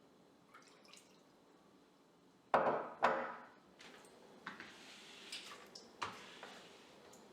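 Kitchen cleaning sounds: two loud sudden knocks about half a second apart, around two and a half seconds in, each dying away quickly, then soft rubbing with light clicks.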